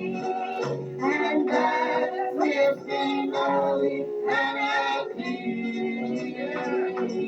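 Gospel group singing with instrumental accompaniment.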